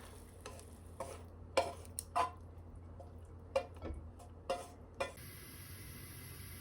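Kitchen utensils tapping and clinking against dishware: about nine short, irregular knocks, the last about five seconds in, over a faint steady hum.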